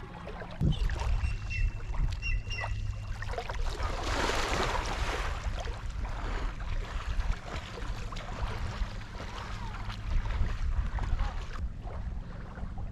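Lake water splashing and sloshing around a person swimming, with a louder splash about four seconds in, over a steady low rumble of wind on the microphone.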